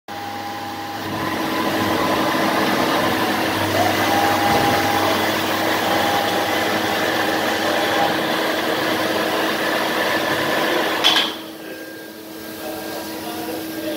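MAHO MH 600 E milling machine running with a steady mechanical hum and whine. About eleven seconds in it cuts off sharply with a click, leaving a quieter hum.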